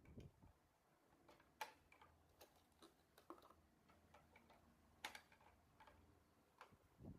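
Faint, scattered clicks and light taps as spice rack pieces are handled and fitted together, with two sharper clicks, about one and a half seconds in and about five seconds in.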